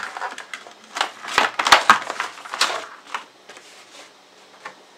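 Cardboard-and-plastic blister packaging of a microphone pop filter being pulled open by hand: crinkling and rustling with several sharp clicks over the first three seconds, then much quieter.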